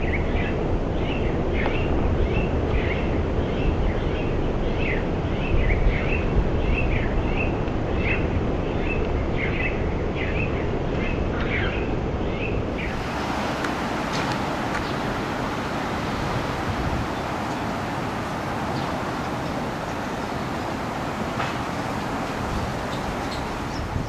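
White-cheeked starlings calling from the nest in short, repeated chirps, about two a second, over a steady low rumble of city background noise. About halfway through, the chirps give way to an even wash of street noise with only a few faint calls.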